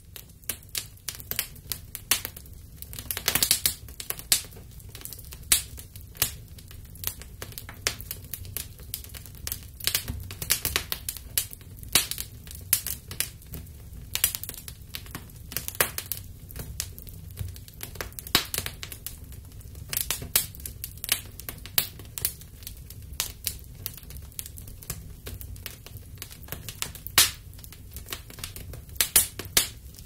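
Wood fire in a fireplace crackling: irregular sharp pops and snaps, a few much louder than the rest, over a low steady rumble.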